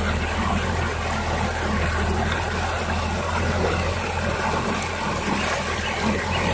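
Steady rush of a shallow rocky stream flowing over stones, with a low steady rumble underneath.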